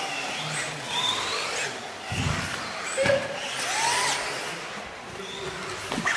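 Several electric 2WD off-road RC buggies racing on a carpet track, their motors whining up and down in pitch as they accelerate and brake. Two dull thumps come about two and three seconds in.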